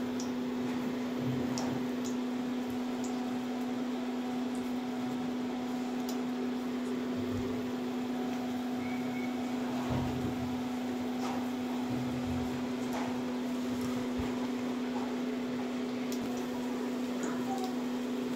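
Induction cooktop humming steadily as it heats a kadai of oil, with faint sizzling and a few soft plops as pakoras are lowered into the oil one at a time.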